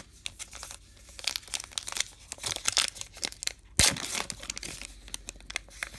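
Plastic wrapper of a baseball card pack crinkling and tearing as it is pulled open by hand, in a dense run of crackles, with a single sharp snap about four seconds in.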